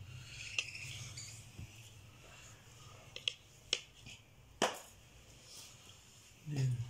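A metal spoon clicking against a ceramic plate of rice, several scattered sharp clicks with the loudest about two-thirds of the way through.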